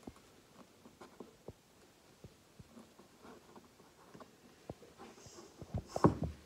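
Light scattered taps and clicks of hands handling a small gingerbread house on a hard tabletop, with a louder cluster of knocks about six seconds in.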